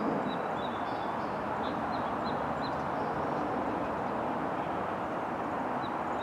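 Outdoor ambience: a steady rushing noise with a handful of short, high bird chirps, several in the first few seconds and a couple more near the end.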